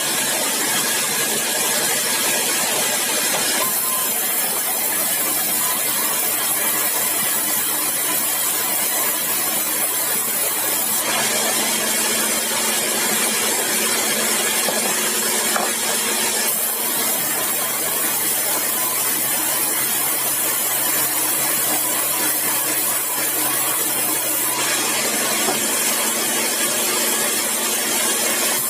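Sawmill saw running while cutting meranti timber: a steady motor hum under a loud hissing noise. The hiss grows and eases several times.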